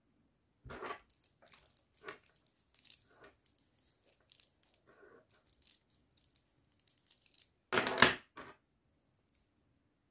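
Strung beads clicking and rattling together as they are rubbed in a terry-cloth towel, with the cloth rustling, in short irregular bursts. The loudest rustle comes about eight seconds in.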